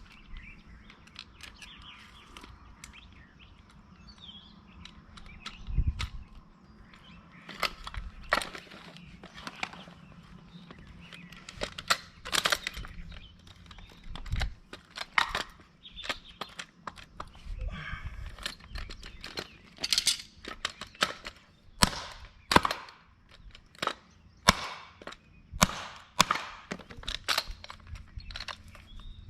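Irregular sharp metallic clicks and clacks, with a few dull thumps, from a hand hose-clamp tool and a steel band clamp being worked onto a hose.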